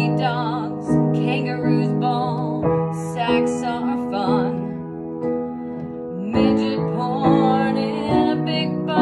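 Upright piano played in held chords while a woman sings over it with vibrato, the voice pausing briefly between phrases.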